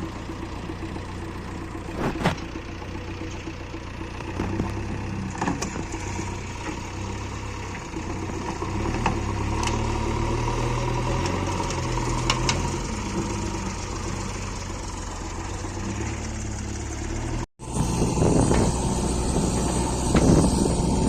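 Heavy diesel engine running steadily, rising in load for a few seconds midway, with occasional sharp metallic clanks. Near the end it changes abruptly to a louder, rougher engine sound.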